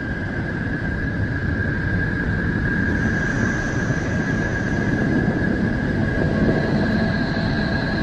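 Sonified space recording from the solar system: a dense, steady rumbling noise with a steady high whistle held over it, and fainter, higher tones coming in about three seconds in and again near the end.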